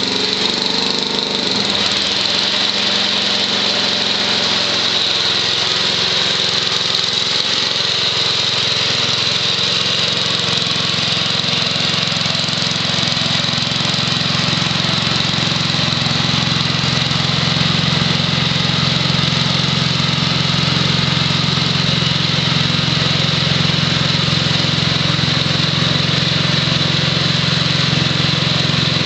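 Wheel Horse lawn tractor's 6 HP Tecumseh H-60 single-cylinder engine running steadily while driving a 32-inch snowthrower through shallow snow. Its note shifts about two seconds in and then holds steady, under a constant high hiss.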